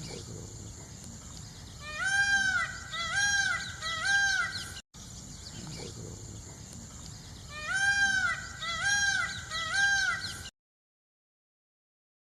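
An animal calling three times, about a second apart, in short rise-and-fall cries over a steady background hiss. The same recording plays twice, then cuts off.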